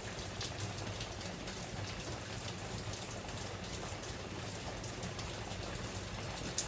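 Heavy rain, absolutely pouring: a steady, even hiss threaded with countless tiny drop ticks.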